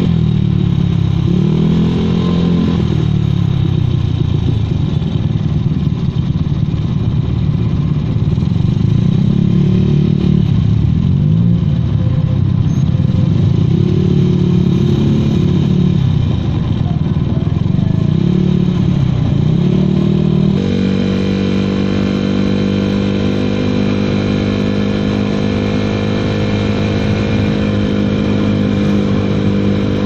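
Honda Vario 110 carburettor scooter's single-cylinder four-stroke engine through an AHM racing exhaust, heard while riding: the engine pitch rises and falls again and again as the throttle is opened and eased, then about two-thirds through it settles to a steady pitch at cruising speed.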